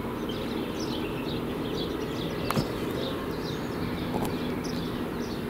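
Small birds chirping over and over in short calls over a steady low outdoor hum, with a single sharp click about two and a half seconds in.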